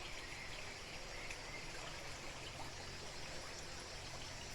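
Faint, steady chorus of cicadas buzzing.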